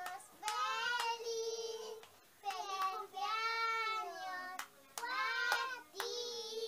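Two young girls singing together in high child voices, in several drawn-out phrases with short breaths between, while clapping their hands now and then.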